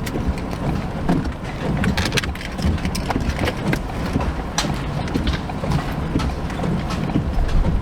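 Steady road and wind noise inside a moving vehicle, with irregular sharp taps scattered throughout.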